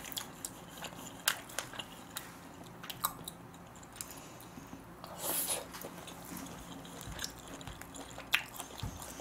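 Close-miked chewing and biting of smoked duck, soft mouth sounds with scattered light clicks and a brief louder noise about five seconds in.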